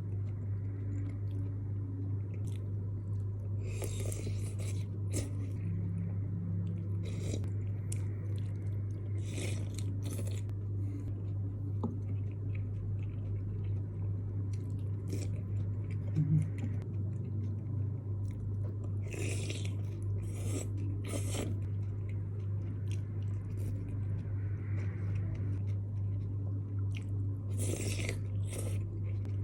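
A person eating mie kocok, Bandung beef noodle soup, close to the microphone: wet chewing and mouth noises that come in clusters every few seconds, over a steady low electrical hum.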